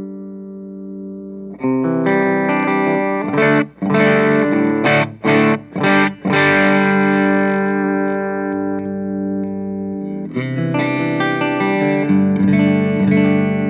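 Electric guitar played through an Orange Crush 35 LDX combo amp. A ringing chord fades, then chords are struck, with several short choked stops a few seconds in, and sustained chords after that.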